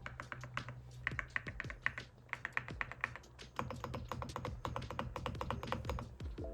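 Typing on a Cerakey Nada 65 gasket-mounted mechanical keyboard with ceramic keycaps and pre-lubed Celeste blue linear switches: rapid, deep, thocky keystrokes, with a brief lull a couple of seconds in.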